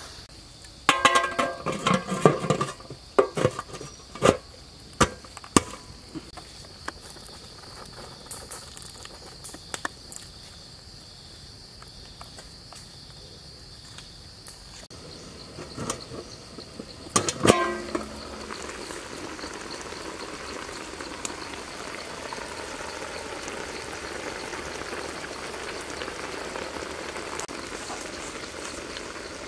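A metal cooking pot and its lid clank and rattle for the first few seconds, clank once more loudly about 17 seconds in, and then the liquid in the pot bubbles steadily at a boil. An insect buzzes in a high steady tone throughout.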